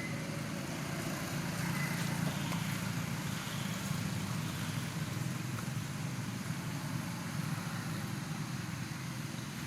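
Steady low engine hum, like a vehicle idling, over outdoor background noise.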